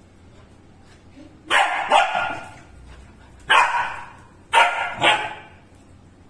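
An upset Labrador retriever puppy barking five times: a pair of barks, then one, then another pair.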